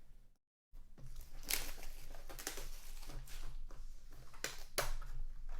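Crinkling, tearing plastic packaging and cardboard handling as a sealed box of trading cards is unwrapped and opened, with sharp crackles throughout. It starts about a second in, after a brief dropout.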